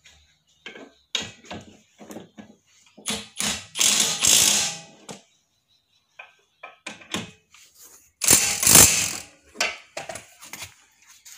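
Ratchet wrench clicking in quick runs while bolts are tightened on the brake assembly, with knocks of metal tools in between. Two longer runs of dense clicking, about a second each, are the loudest parts, near the middle and toward the end.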